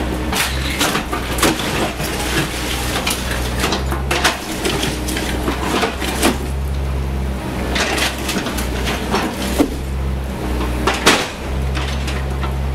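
CAT 304E CR mini excavator's diesel engine running steadily while its bucket knocks into a concrete-block wall, with blocks and rubble cracking and clattering down in irregular knocks. The sharpest knock comes near the end.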